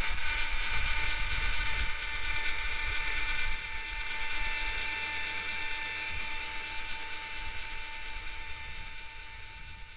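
Truck camper jacks lowering the camper toward the truck bed: a steady mechanical gear whine over a low rumble. It drops a little in level about three and a half seconds in and fades toward the end.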